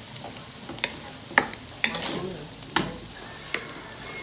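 A utensil stirring a large pan of frying vegetables, with several sharp knocks against the pan over a steady sizzle.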